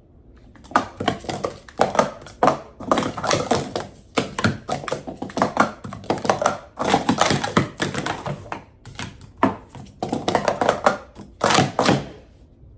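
Plastic sport-stacking cups clacking rapidly as they are stacked up and down through a full cycle, in quick bunches of clacks with short pauses between sequences.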